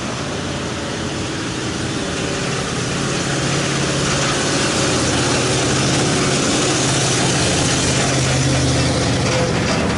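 Engine of an old flatbed truck towing a large boat on a trailer, growing louder as it draws near and comes alongside, over a steady rush of wind and road noise.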